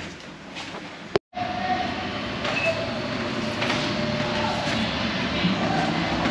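Steady vehicle or street-traffic rumble, cut by a brief drop to silence about a second in.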